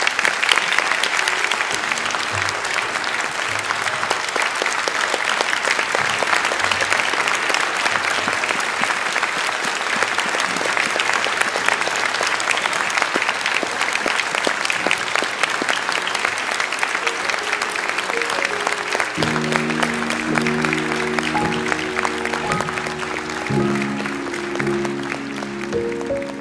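Audience applauding steadily. About three quarters of the way through, instrumental music with held notes comes in under the clapping.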